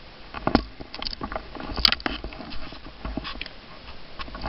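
Irregular clicks, taps and rustles of a handheld camera being moved and fumbled around the motorcycle's handlebars, with one sharp click a little under two seconds in.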